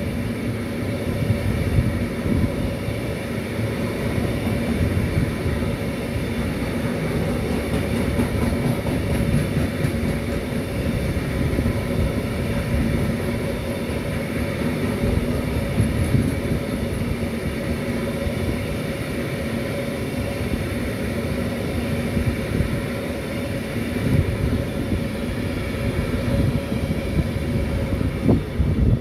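Container freight train's wagons rolling past at speed: a steady rumble and clatter of wheels on the rails, with a steady hum running through it. The last wagon goes by near the end.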